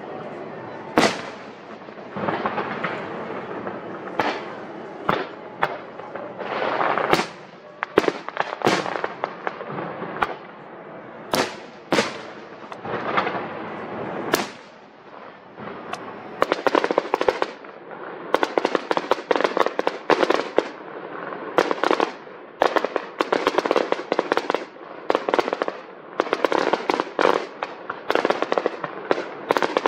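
Aerial fireworks display: shells bursting with a string of separate sharp bangs, then from about halfway through a dense barrage of rapid crackling pops from crackle-effect shells.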